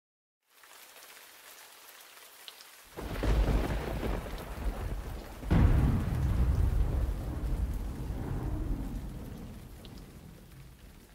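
Steady rain hiss with two rolls of thunder, the first about three seconds in and the second about five and a half seconds in. Each rolls on and slowly dies away, fading almost to nothing near the end.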